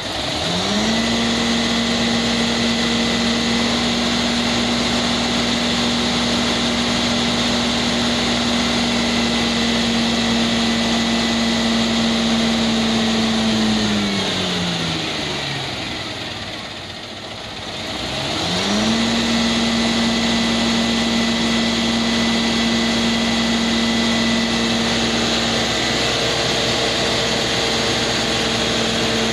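An engine revved up quickly and held at a steady high speed for about thirteen seconds, then let sink back down; after a short lull it is revved up and held steady again, starting to drop at the end.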